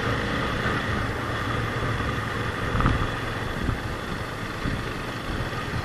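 Motorcycle engine running steadily, with a brief thump just under three seconds in.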